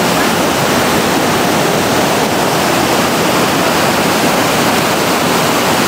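Whitewater of Huka Falls on the Waikato River rushing through its rock gorge, loud and steady.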